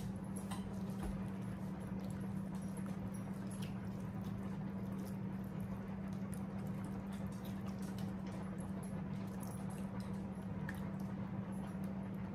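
A steady low hum, with scattered soft clicks and squelchy taps as a plastic spoon stirs thick ground-meat sauce in a pot.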